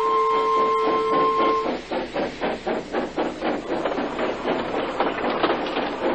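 Steam locomotive running, chuffing in a quick, regular rhythm with a hiss of steam. Held musical tones underneath cut off a little under two seconds in.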